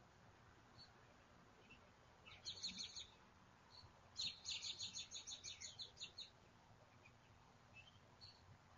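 A songbird singing two short bursts of rapid repeated high notes, the second lasting about two seconds at roughly six notes a second, with a few faint chirps in between.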